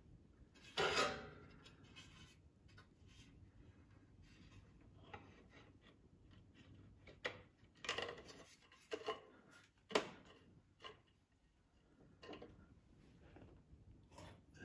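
Scattered clinks, knocks and scraping as a metal air filter base plate is handled and fitted against a riding mower engine's carburetor, the loudest knocks about a second in and about ten seconds in.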